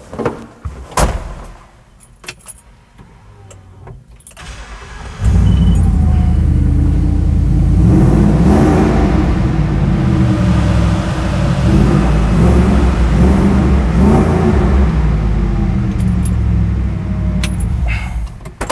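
Generation 3 Ford Coyote V8 with custom exhaust starting up about five seconds in, after a couple of sharp clicks. It runs loudly, its pitch rising and falling a few times as it is revved, and stops near the end.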